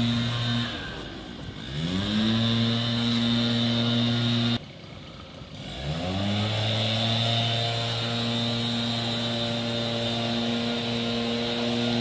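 A motor or small engine running at a steady pitch. It cuts back twice, about a second in and again near the middle, and each time rises back up in pitch to the same steady note.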